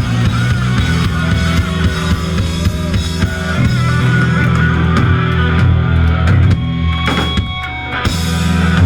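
Live rock band playing loud, with drum kit, bass and guitar. The texture thins about two-thirds of the way through, and a run of sharp drum hits follows near the end.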